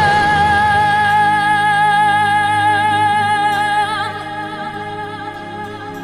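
Background music: a long held note with vibrato over sustained accompaniment, growing quieter after about four seconds.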